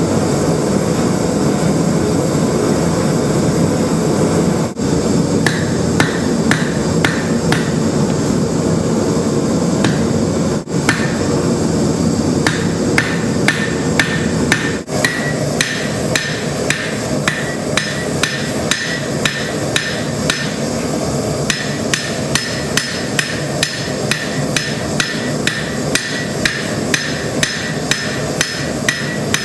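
Blacksmith's hammer striking hot steel on an anvil, a regular run of blows about two a second, starting about five seconds in, over the steady roar of a gas-fired forge.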